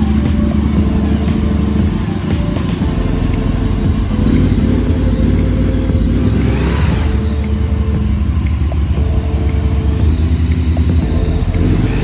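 Aprilia RSV 1000R Mille's 998cc V-twin engine running steadily, with background music over it.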